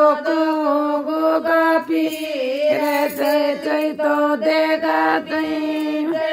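Women singing a folk devotional bhajan to Goga Ji, the melody drawn out in long held notes, with a dholak struck along here and there.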